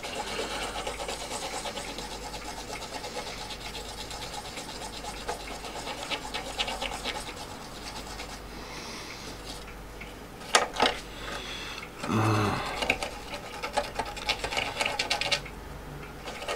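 Cotton swab scrubbed rapidly back and forth over a circuit board's solder pads and IC sockets, a steady scratchy rubbing. A couple of sharp clicks come about ten and a half seconds in.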